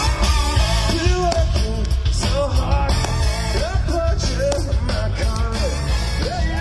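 A rock band playing with a lead singer, loud and steady.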